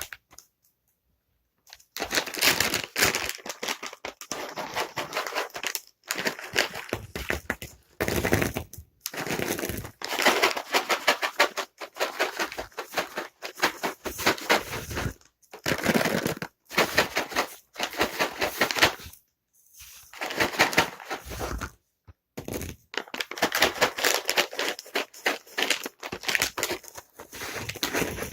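Container of dry cat treats being shaken hard in repeated bursts, the kibble rattling in quick runs of clicks with short pauses between them. It is the familiar shake that calls a cat to treats.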